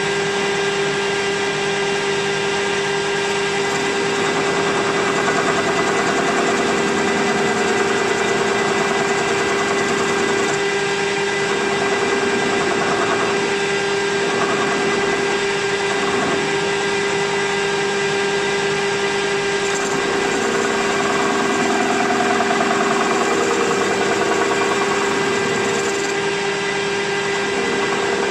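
Metal lathe running steadily with a constant whine, turning a bearing blank between the chuck and a tailstock centre while the tool rounds off its end.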